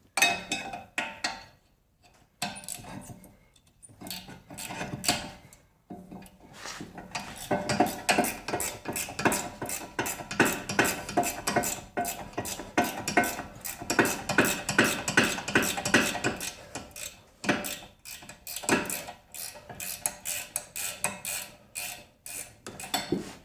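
Hand tools on a car's rear brake assembly: quick runs of ratchet-wrench clicking and metal-on-metal clinks. They are sparse at first, come thick and fast for about ten seconds in the middle, then thin out again.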